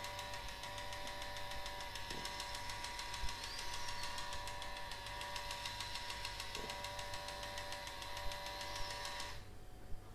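Small geared electric motor in a dummy security camera whirring steadily with a fast fine ticking as its motion-sensor-triggered head pans, stopping about nine and a half seconds in.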